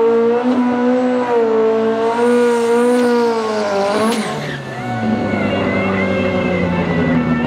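Turbocharged SR20 four-cylinder of a 750 hp Nissan 200SX drag car held at high, steady revs through a burnout, its rear tyres spinning. About four seconds in the revs swoop and drop with a brief rising whistle, and the engine runs on at low revs as the car rolls forward.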